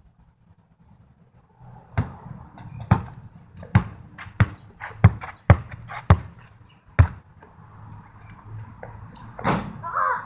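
A basketball being dribbled: about eight sharp bounces, roughly one or two a second, starting about two seconds in, followed near the end by a longer, louder noise.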